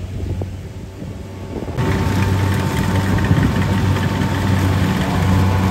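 Kubota DC-70 combine harvester's diesel engine running steadily, a deep hum with a thin steady whine above it, much louder from about two seconds in.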